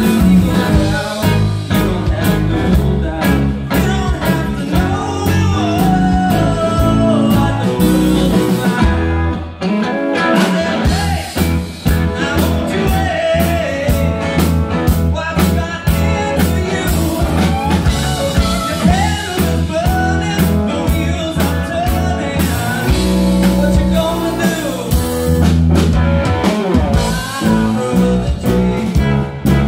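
Live band playing a blues-rock song: electric guitar, bass guitar, drum kit and keyboard together, loud and continuous.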